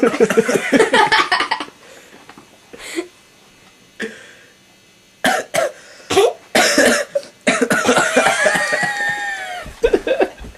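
Bouts of harsh coughing. One fit comes at the start, a couple of single coughs follow, and a run of short coughs leads into a longer, wavering fit near the end.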